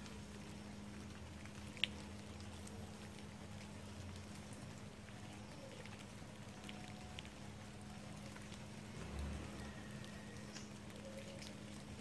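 Faint outdoor background noise with a steady low hum, a single sharp click about two seconds in, and a few scattered light ticks.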